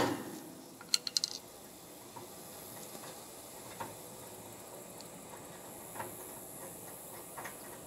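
Small metal knocks and clicks as the rear draft lever is fitted to the side of a wood cook stove: a sharp knock at the start, a quick cluster of clicks about a second in, then a few faint single ticks.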